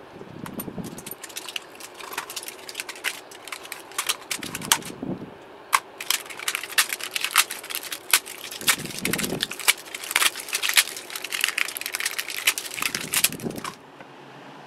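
Crinkly plastic shrink wrap crackling and tearing as it is cut and peeled off a battery pack's cylindrical cells, with a few low thuds from handling the pack. The crackling cuts off shortly before the end.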